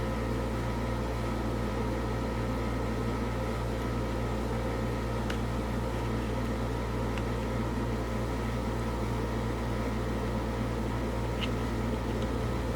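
Steady low mechanical hum, like a fan or other running appliance in the room, with a few faint clicks from handling.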